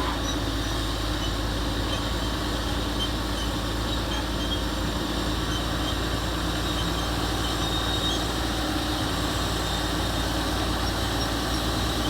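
Komatsu D375A bulldozer's six-cylinder diesel engine running steadily at a low, even speed, with no revving.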